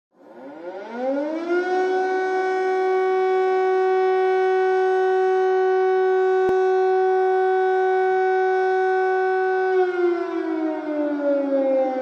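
Air raid siren sounding: its pitch rises over the first couple of seconds, holds one steady tone, then begins to wind down about ten seconds in.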